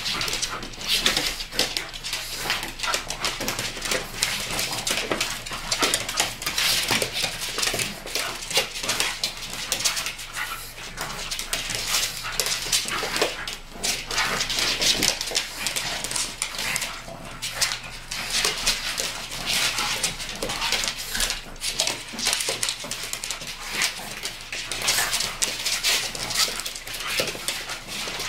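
Two pugs and a fox terrier play-fighting: dog vocal noises mixed with many quick, irregular clicks and scuffles of claws and paws on a wooden floor.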